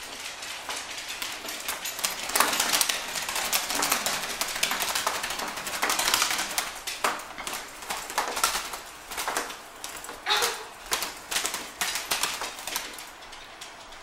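A robin beating its wings against a window pane, trapped inside: a dense run of rapid wing flutters and taps on the glass, which breaks into separate spurts in the second half.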